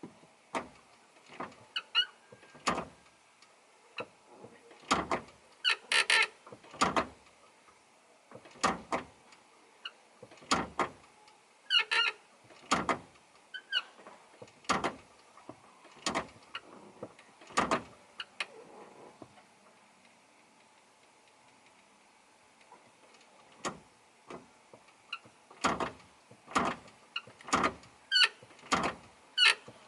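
Nissan 180SX clutch pedal assembly squeaking sharply each time the clutch is pressed and released, over and over with a pause about two-thirds of the way through. The squeak turned out to come from a cracked clutch pedal bracket.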